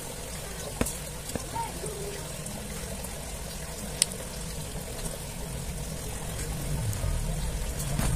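A few small sharp clicks and taps as small smartphone parts are handled and fitted by hand, over a steady background hiss and hum. A low rumble swells near the end.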